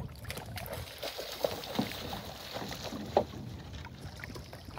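Water splashing and lapping in the shallows of a river, with a few short, sharper splashes.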